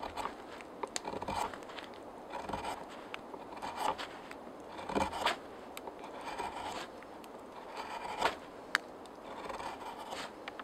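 Curved carving knife cutting into a debarked log in repeated short scraping strokes, roughly one a second, with a few sharp clicks among them.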